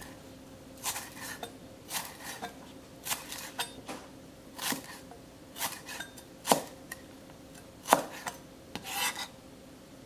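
Chef's knife slicing green onion whites diagonally on a plastic cutting board: about a dozen short, crisp cuts at an uneven pace of roughly one a second, stopping shortly before the end.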